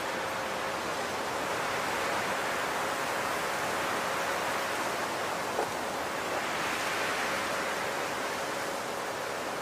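Steady rushing noise, like a fan or background hiss, with a faint steady hum underneath and one brief tick a little past halfway.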